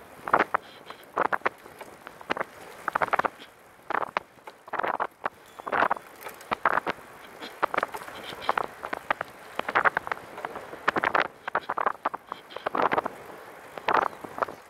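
Wind buffeting the helmet-mounted camera's microphone during a fast ride on a recumbent trike, coming in irregular gusts.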